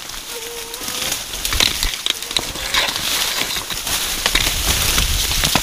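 Dry leaves and cane stalks rustling and crackling, with many small sharp snaps, as someone pushes through thick vegetation. The noise builds about a second in and stays dense.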